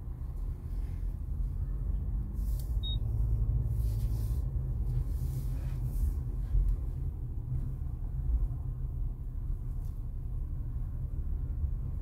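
Low, steady rumble of a car rolling slowly, heard from inside the cabin, with a brief faint high pip about three seconds in.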